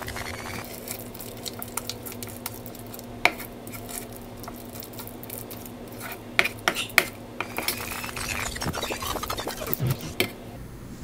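Metal spoon stirring and scraping thick, wet sweet-potato cookie dough around a bowl, with sharp clinks where the spoon strikes the bowl's side, several in quick succession.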